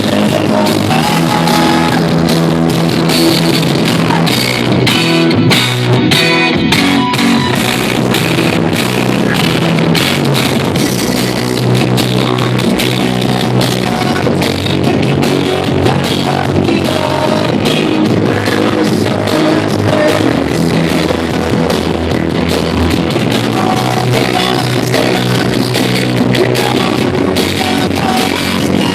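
Loud dance music with drums and guitar and a steady beat, played over a sonidero sound system.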